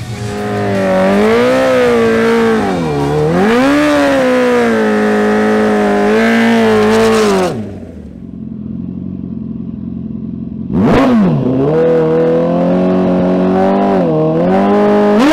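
Honda CBR1000RR's inline-four engine revved and held at high revs with brief dips, falling to a quieter low running about halfway through. A single sharp rev blip follows, then the revs are held high again.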